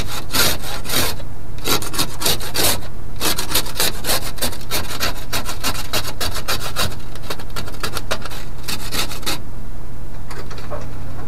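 Ice being scraped off a truck's side window glass, heard from inside the cab: quick rasping strokes in a steady run that stops a couple of seconds before the end.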